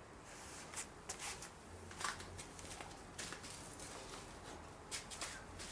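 Faint, scattered light clicks and rustles of small parts being handled: the oil filter housing lid and O-ring being turned over in the hands before the old O-ring is pried off.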